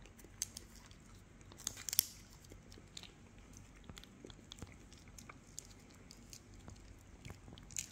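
Faint chewing and crunching of crisp fried food close to the microphone, with scattered sharp clicks, the loudest about two seconds in.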